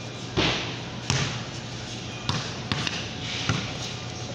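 A series of about five sharp knocks on a hard floor, irregularly spaced, over a steady low hum.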